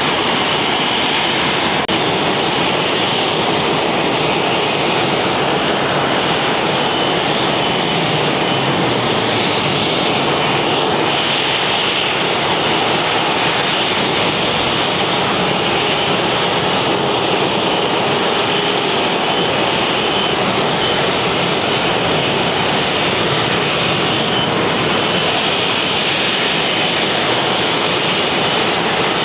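Boeing 737-800's CFM56-7B turbofan engines running steadily at idle: an even, loud rush with a faint high whine.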